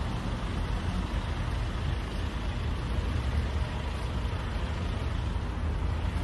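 Steady low rumble of road traffic and outdoor noise, with no distinct events.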